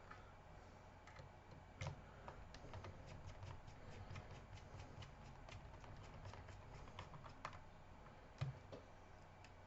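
Faint, irregular clicks and small taps of a small screwdriver driving two screws into a laptop's drive bay, with a slightly louder knock about two seconds in and another near the end.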